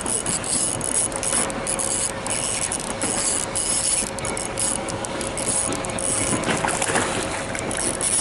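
Spinning reel being cranked to bring in a hooked trout: a steady mechanical whir with a faint constant whine, over irregular crackling hiss.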